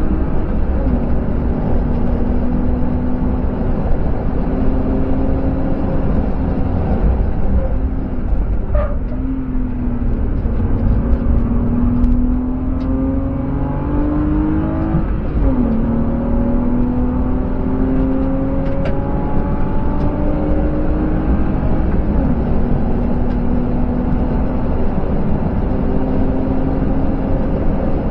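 BMW E36 coupe's 2.5-litre M50B25TU straight-six, heard from inside the cabin, pulling hard on track. Its note climbs slowly in pitch and drops with each upshift, about a second in, around the middle and about two-thirds through. It eases and changes around a third of the way in, when the car slows for a tight corner, and heavy road and wind noise runs underneath.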